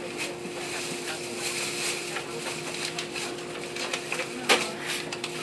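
Cabin of a passenger train standing at a station: a steady hum with scattered small clicks and knocks, and one sharp knock about four and a half seconds in.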